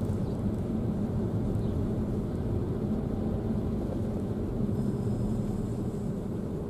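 Car driving slowly, heard from inside the cabin: a steady low rumble of engine and tyres on the road.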